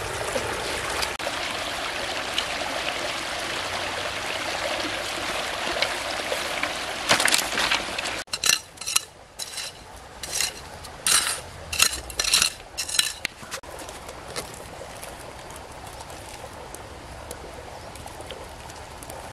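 A steady rushing noise for about eight seconds. It then breaks off and gives way to a metal digging blade chopping and scraping into dry, stony soil: about nine sharp strikes over some five seconds, after which it goes quieter.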